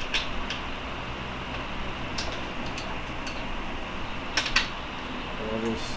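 Light metallic clicks and taps, a handful scattered irregularly with a louder pair about two-thirds of the way through, from the steel gears and parts of a Honda K-series manual transmission being handled and fitted during reassembly, over a steady background hiss.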